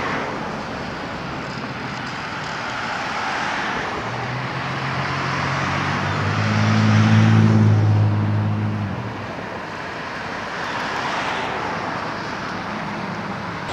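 Road traffic passing on a city street: a steady rush of tyres, with one vehicle's low engine hum building from about four seconds in, loudest just past halfway, then fading as it goes by.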